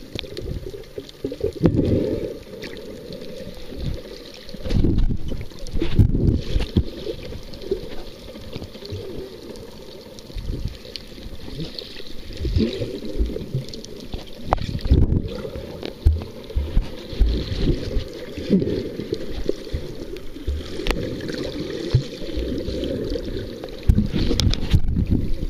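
Muffled underwater sloshing and bubbling, heard through a camera held under the surface, with irregular surges and a few knocks as swimmers kick close by.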